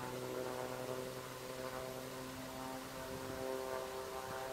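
A steady engine hum holding one pitch, with no rise or fall.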